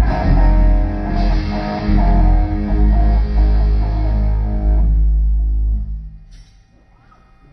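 Electric guitar and bass guitar playing a short repeated riff through the stage amplifiers, cutting off about five to six seconds in.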